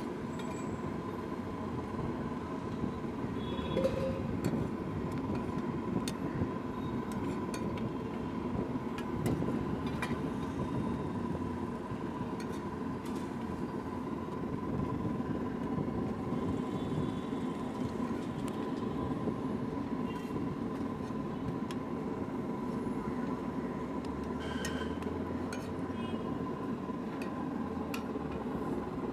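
Steady street noise with traffic and a thin steady tone, with occasional light clinks of a metal spatula on an iron tawa.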